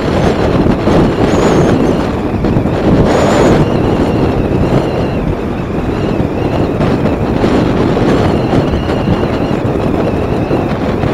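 Steady rush of wind buffeting the microphone of a motorcycle-mounted camera while riding on the road, mixed with the running engine and tyre noise, and a faint whine that comes and goes.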